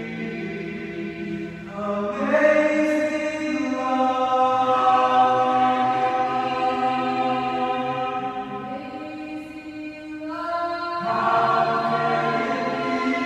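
Small mixed-voice a cappella group singing a hymn in five-part harmony, holding long chords that ring with the echo of a large gymnasium. The voices swell into a new phrase about two seconds in, ease off, and swell again near the end.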